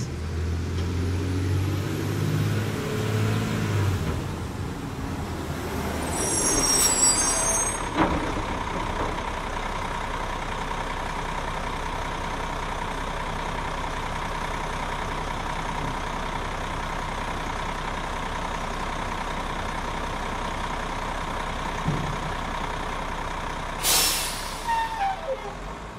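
Garbage truck dumping its load: the diesel engine runs for the first few seconds, a burst of air hiss comes at about seven seconds, then a steady hum with a high whine carries on as the raised body empties. A few knocks and another short air hiss come near the end.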